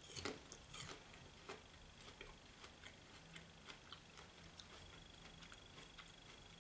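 Near silence with faint, irregular small clicks, roughly one or two a second, the clearest in the first second, over a faint steady high-pitched whine.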